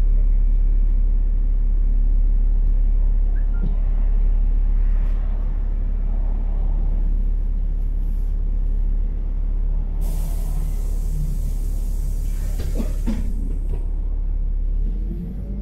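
LiAZ-5292.65 city bus engine idling with a steady low hum. About ten seconds in comes a loud hiss of compressed air from the bus's pneumatic system, lasting about three seconds, followed by a few knocks.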